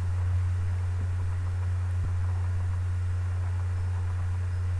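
A steady low electrical hum with a faint hiss, the recording's background noise; no other distinct sound stands out.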